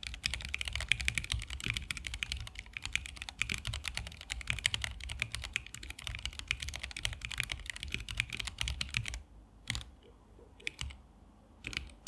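Fast typing on a Corne split mechanical keyboard with Gateron Oil King linear switches and XDA-profile PBT keycaps: a dense, rapid run of keystrokes that stops about nine seconds in, followed by a few single key presses.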